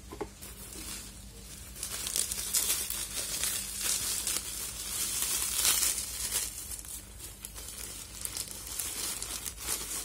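Plastic packaging crinkling and rustling as a webcam is pulled out of its clear plastic bag and soft wrapping sleeve. The crinkling starts about two seconds in, grows loudest around the middle, then goes on more lightly in short bursts.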